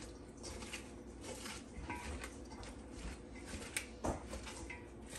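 Tongs tossing curtido, wet shredded cabbage slaw in vinegar, in a stainless steel mixing bowl: faint rustling of the slaw with a few light clicks of the tongs against the metal bowl, the sharpest about four seconds in.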